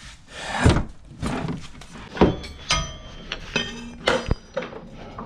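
Metal tools and car parts knocking and clanking during work on car suspension: a series of separate knocks, several with a brief metallic ring.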